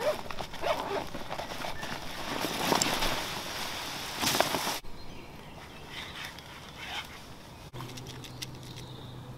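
Rustling and crackling of a leafy camouflage net being pulled out of a backpack and shaken out, loudest in the first half. Then quieter handling with a few light clicks, and a faint steady low hum near the end.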